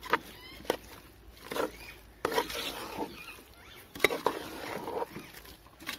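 Metal ladle stirring thick mushroom masala in a pressure cooker pot, scraping through the mixture and knocking irregularly against the pot's side.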